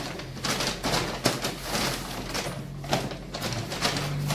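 Rustling and crinkling of clothes and shopping bags being handled, an irregular run of short crackles and rustles.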